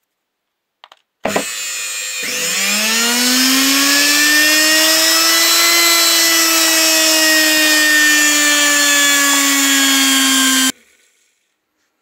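Brushed universal motor from an LG or Samsung washing machine, its stator winding wired in series with the brushes and run straight off 220 V mains. It starts with a click, whines up in pitch to full speed over a few seconds, runs at maximum revs, and stops abruptly near the end.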